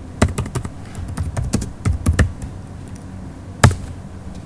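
Typing on a computer keyboard: a quick run of keystrokes, then a pause and a single harder keystroke about three and a half seconds in, the Enter key that runs the command to open a file in the vi editor.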